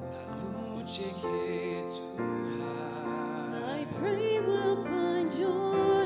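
A solo voice singing long held notes with vibrato over sustained instrumental accompaniment in a slow ballad, gliding up to a higher held note about four seconds in.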